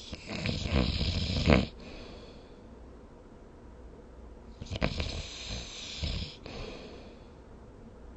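Snoring: a loud rattling snore of about a second and a half near the start, then a second, more broken snore around five to six seconds in.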